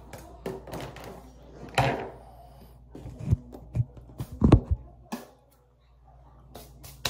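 A series of knocks and thumps, like things being handled and set down, over a faint low steady hum. The loudest, deepest thump comes about four and a half seconds in, and the sound drops out briefly just after.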